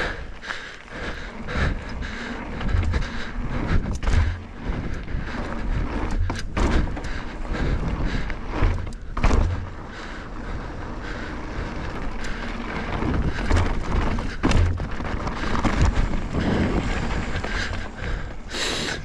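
Mountain bike ridden over rocky trail and down drops: tyres rolling on rock, with repeated thuds and rattles as the bike lands.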